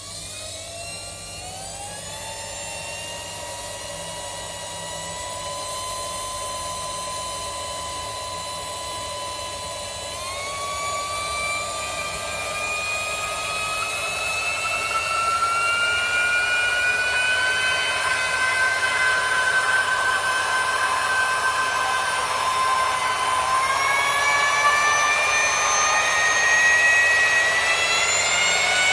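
Lab rotor–stator homogenizer's electric motor and high-speed dispersing head running in a beaker of liquid, whipping it into a white emulsion. It makes a steady whine that gets louder and steps up in pitch as the speed is raised, about ten seconds in and again near the end.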